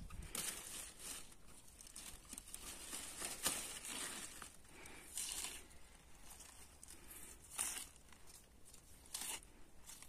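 Stalks and leaves of a wild edible thistle (kenger) being cut and torn by hand, heard as several separate rasping tears and leaf rustles a second or two apart.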